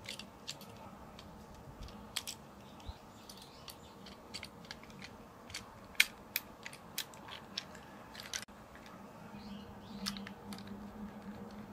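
Scattered light plastic clicks and taps from a Plarail toy train's motor chassis being handled and turned over in the hand, the sharpest click about six seconds in.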